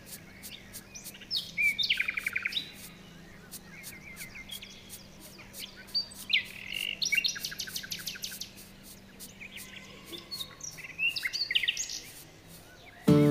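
Songbirds chirping and trilling in short bursts. The loudest fast trills come about two seconds in and again around six to eight seconds in.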